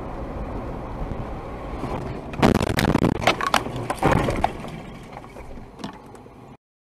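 Car running off a wet road onto the grass verge: steady road noise, then about two seconds of loud knocks and crashes as the car jolts off the road, fading before the sound cuts off suddenly near the end.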